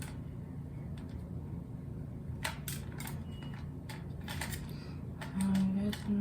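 Small plastic clicks and taps of a camera battery being handled and pushed at the battery compartment of a Sony ZV-1F. Near the end come two short, low, steady hums.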